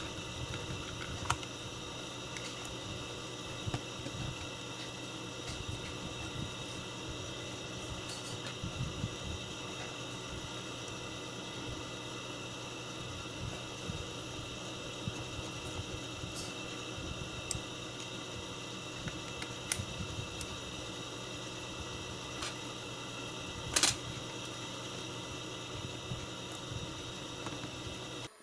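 Steady background hum and hiss with several faint steady tones, broken by small scattered clicks and one sharper click about 24 seconds in.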